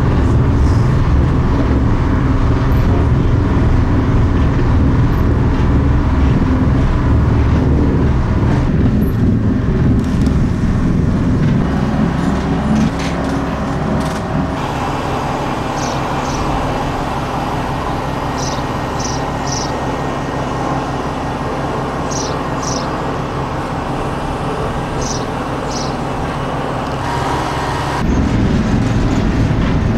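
Diesel railcar running, heard from on board: a steady low engine drone with rail noise. About halfway through it drops to a quieter steady rumble with pairs of short high chirps every few seconds. The louder low drone returns near the end.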